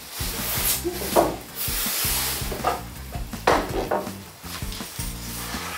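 Several loud rubbing, scraping noises over background music with a steady low bass line.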